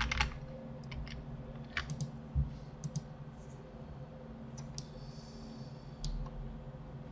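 Scattered clicks of a computer keyboard and mouse, a few at a time with pauses between, over a low steady electrical hum.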